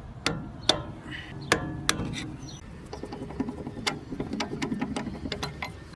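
Metal clinks and knocks as the bolt joining the strut to the lower control arm is worked out, a few sharp knocks in the first two seconds, then a stretch of fast, uneven rattling.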